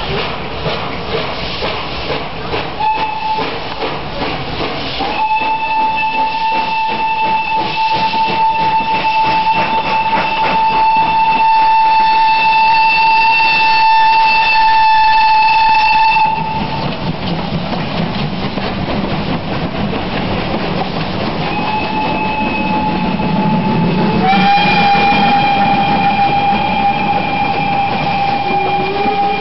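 Steam locomotive whistle blowing: a short toot about three seconds in, then a long steady blast of some eleven seconds, and more blasts near the end. Under it runs the hiss and chuff of the locomotive's steam.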